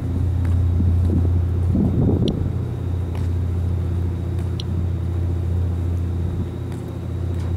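Steady low engine hum with a few even overtones, from the moored ferry's engines or generators running at the berth. Two short high ticks from the Inspector+ Geiger counter stand out over it, a little over two seconds apart, each tick one radiation count at a low background rate.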